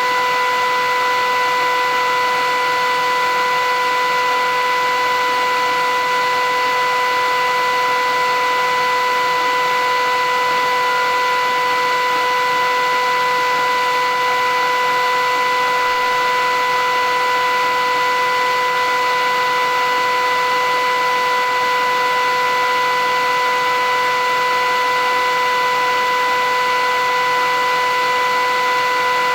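Philips 8000 series vacuum cleaner running steadily: a constant rushing of air with a steady high motor whine.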